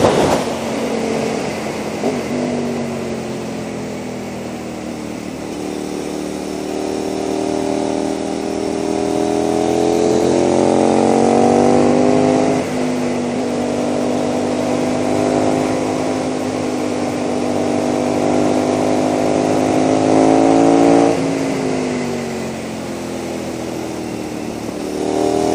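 KTM 990 SMR's V-twin with a Leo Vince exhaust, heard from the bike at speed with wind rush. The engine note sinks as the bike slows in the first few seconds, then climbs under throttle. It drops suddenly about halfway, climbs again, falls off as the throttle closes near the end, and picks up once more just before the end.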